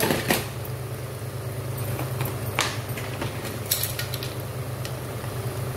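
A steady low hum with three sharp clicks, about 2.6 s and 3.7 s in and one at the very start, from utensils touching the frying pan of sautéing vegetables.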